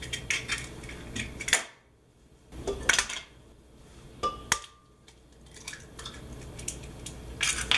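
Eggs being cracked one after another against the rim of a blender jar: a run of sharp taps and shell cracks, the loudest about three and four and a half seconds in, the second with a brief ring.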